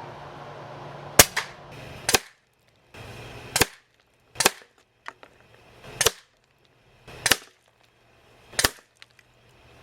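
Umarex Notos .22 PCP air rifle firing through its built-in suppressor: a series of about seven sharp shots, roughly one to one and a half seconds apart.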